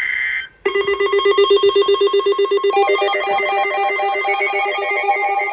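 A brief electronic data-burst screech that cuts off half a second in, then a fast, evenly repeating pattern of electronic beeping tones, like a synthesized ringtone. A second, higher run of notes joins about three seconds in.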